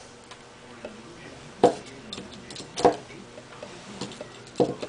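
Faint clicks and three sharper knocks, about a second apart, of small hard parts being handled: a metal pin and a nunchaku's ball-bearing head being lined up for reassembly.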